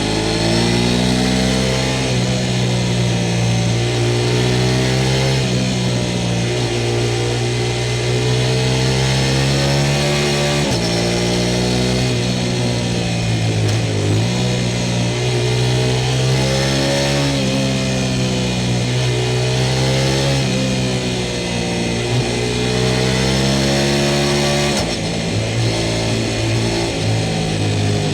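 Sport motorcycle engine running under way, its pitch climbing slowly with throttle and then stepping down with gear changes about four times: near 11 s, 14 s, 20 s and 25 s in.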